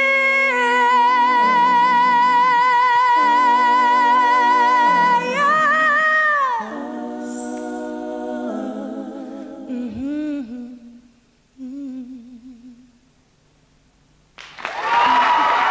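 A cappella vocal ending: a female lead voice holds one long note over a hummed chord from male backing singers that shifts every second or two, then sings a short run of notes about five seconds in, and the harmony dies away by about twelve seconds. After a brief hush, audience applause breaks out near the end.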